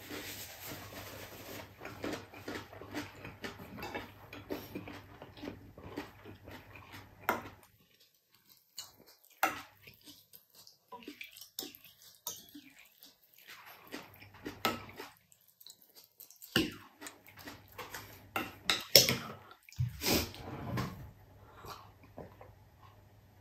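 Close eating sounds: chewing of spicy beef tripe for the first several seconds, then scattered sharp clinks and scrapes of a metal spoon in a glass dish, loudest a little past the middle, and swallowing from a glass mug near the end.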